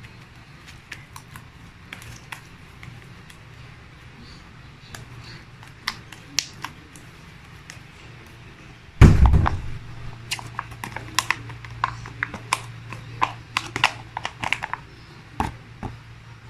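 Slime being handled and pressed into a small glass: scattered small sticky clicks and pops, with one heavy thump about nine seconds in.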